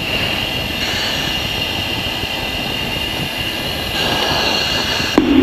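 Steady cockpit noise of an F-16 in flight: a rushing hiss with a steady high whine, getting a little louder about four seconds in. Near the end a loud low buzz cuts in.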